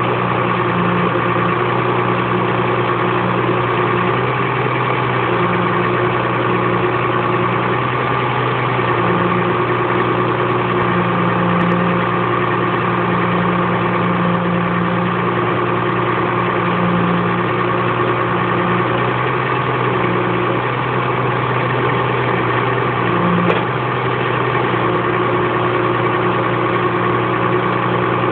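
Forestry forwarder's diesel engine running steadily while its hydraulic crane and grapple load logs, the engine note swelling a little now and then. One brief knock about three-quarters of the way through.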